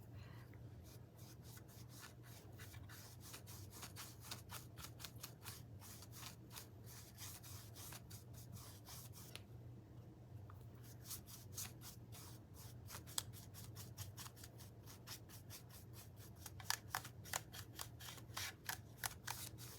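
Small paintbrush brushing paint onto a wooden cutout: faint, quick strokes in a steady run, pausing briefly about ten seconds in and picking up again near the end, over a low steady hum.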